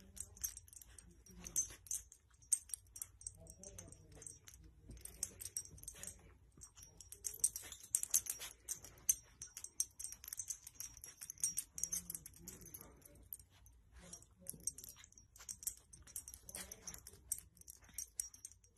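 Faint rustling of blankets with many small crackles and clicks as a dog noses and tucks a blanket around a sleeping baby.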